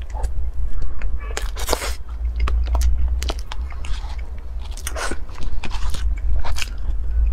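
Close-miked mouth sounds of someone eating soft cream cake: irregular wet smacks and clicks of chewing, with a spoon scraping into the cake inside its plastic wrap. A steady low hum runs underneath.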